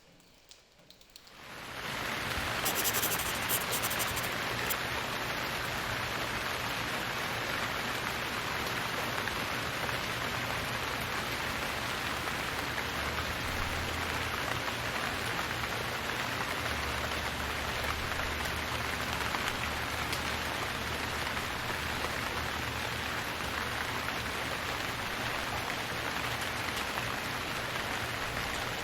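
Steady, even hiss of water noise, fading in over the first two seconds out of near silence.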